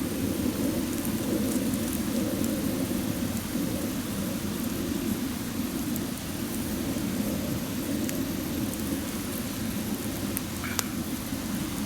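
Campfire burning with a steady low rush and a few sharp crackles, one of them near the end.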